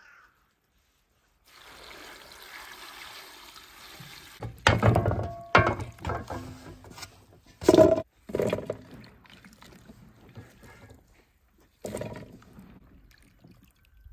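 A few seconds of water running or pouring, then a series of sharp knocks and clatters, some ringing briefly, with the loudest in the middle.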